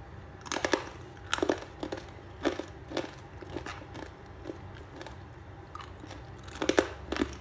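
Crisp, freshly fried rice-flour murukku crunching, bitten or broken, in a series of sharp, irregular crunches with the loudest near the end. The crunch is the sign of a properly crisp murukku.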